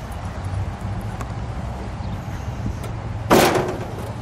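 A single loud, sharp clunk of the 1962 Imperial's metalwork about three seconds in, ringing briefly, over a steady low outdoor rumble.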